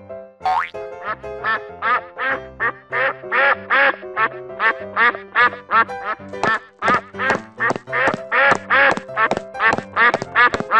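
Duck quacking over and over, about three quacks a second, getting shorter and sharper in the second half, over cheerful background music.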